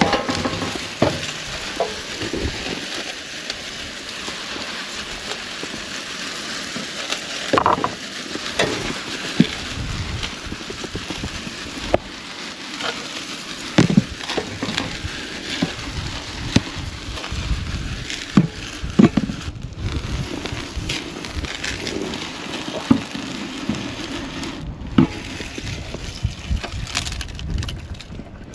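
Birdseed pouring into a large bird feeder: a steady hissing rattle of seed, with scattered knocks and clatters.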